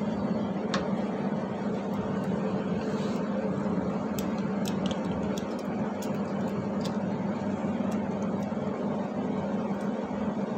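Steady low mechanical hum, with a scatter of light clicks in the middle as the metal slide clip, glass slide and plastic cytofunnel of a cytocentrifuge sample holder are fitted together by hand.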